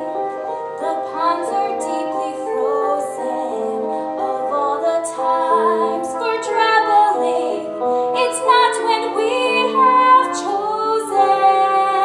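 Stage musical number: a woman singing with instrumental accompaniment, with long held notes.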